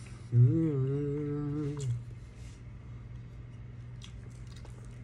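A person eating hums a drawn-out closed-mouth "mmm" with a mouthful of food, lasting about a second and a half. After it come soft chewing and a few small clicks of a metal spoon in a plastic tub over a steady low room hum.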